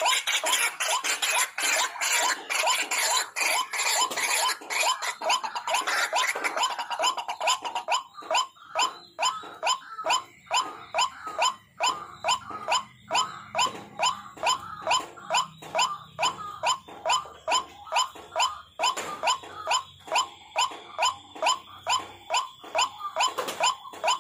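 White-breasted waterhen (ruak-ruak) calling with harsh, repeated croaks. The calls overlap thickly at first, then about eight seconds in they settle into a steady run of about three notes a second.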